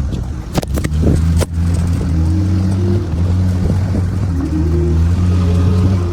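A vehicle engine running steadily under load, its pitch shifting in small steps, with a few sharp knocks or rattles in the first second and a half.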